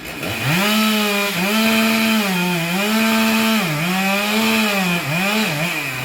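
Stihl MS 462 two-stroke chainsaw revved hard in repeated bursts, holding at full throttle for about a second at a time, dipping and climbing again, with quicker blips near the end.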